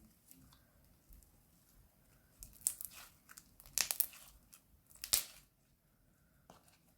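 Crunchy slime being worked by hand, giving clusters of sharp crackling, crunching pops. There are three main bursts, the loudest about four and five seconds in, with quiet handling between them.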